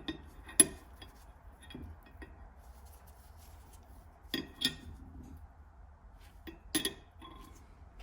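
Small brass tool parts, likely of the gasket cutter, clinking and tapping as they are handled and set down: a sharp clink about half a second in, then pairs of clinks near the middle and toward the end.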